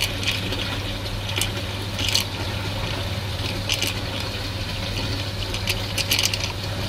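Abanaki Oil Boss tramp oil skimmer running: a steady low pump hum, with brief watery sounds at irregular intervals as coolant and oil are drawn into the 3D-printed intake and hose.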